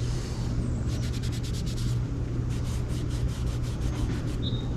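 The end of a PVC irrigation pipe being wiped clean of mud, quick repeated rubbing strokes in two spells, over a steady low rumble.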